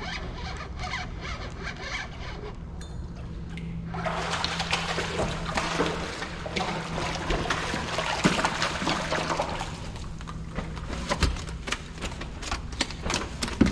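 Water splashing and trickling close to the microphone beside a fishing kayak, growing louder about four seconds in, with scattered sharp clicks.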